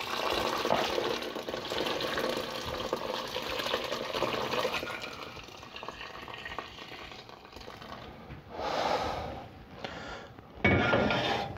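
Hot sparge water poured from a pot over a bag of mashed grain in a plastic bucket: a steady splashing that fades after about six or seven seconds, rinsing the sugars out of the grain. About a second before the end, a sudden loud knock as the pot is set back down on the gas hob's grate.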